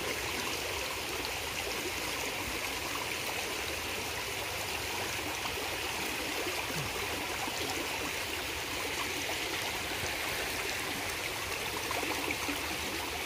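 Shallow river water running over rocks: a steady rush of flowing water.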